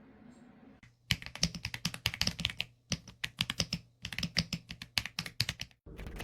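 Fast typing on an EPOMAKER x Aula F75 gasket-mount mechanical keyboard: a quick run of key clicks starting about a second in, broken by two short pauses.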